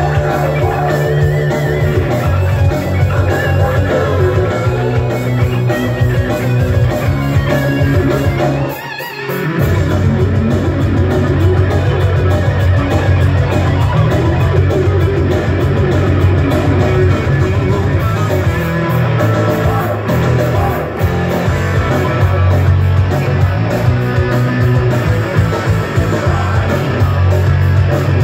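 Live heavy metal band with electric guitar leading over drums, played loud. The band drops out briefly about nine seconds in.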